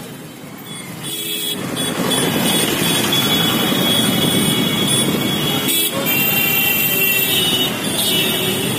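Congested road traffic: motorcycle and auto-rickshaw engines running, with vehicle horns honking. A short toot comes about a second in, and a longer horn is held from about six seconds in.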